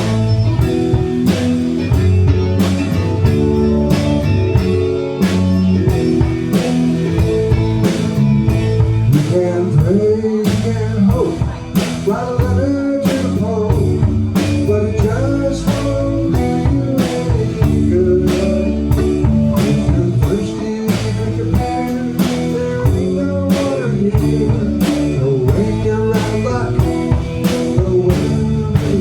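Live blues band playing an instrumental passage: guitar over a drum kit keeping a steady beat, with a bending lead line coming in after about ten seconds.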